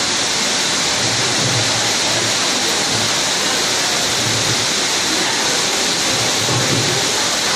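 Hailstorm: hail and heavy rain falling steadily and densely, a loud even hiss with no let-up.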